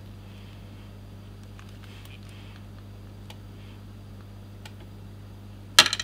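Steady low hum with a few faint ticks from a small cable being handled, then near the end a short loud clatter of small metal screws being picked at by a cockatiel.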